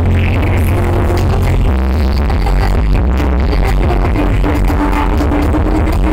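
Loud electronic dance music with heavy deep bass, played through a stacked carnival 'sound horeg' speaker system.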